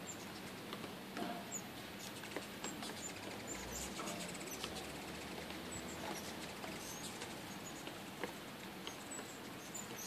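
Ruby-throated hummingbirds at a feeder: scattered high, squeaky chips and twitters with small ticks between them. A low hum passes close for about a second, about three and a half seconds in.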